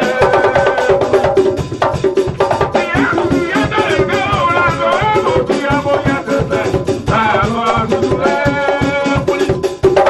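Live band music: men singing into microphones over keyboard and a fast, steady percussion beat.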